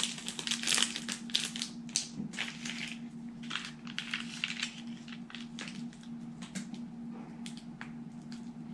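Small plastic seasoning sachet of instant noodles crinkling and being squeezed between fingers as its powder is shaken over a plate of noodles: irregular quick crackles, thickest in the first few seconds and thinning out after.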